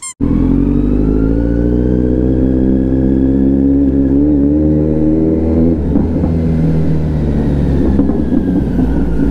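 Kawasaki Z900's inline-four through an aftermarket exhaust, its revs climbing slowly for about five and a half seconds. Then the note drops to a rougher, uneven running with scattered sharp pops.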